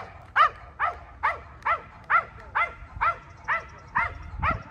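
A dog barking in a steady, even rhythm, a little over two barks a second, each bark short and clipped, with a low rumble underneath during the last second or so.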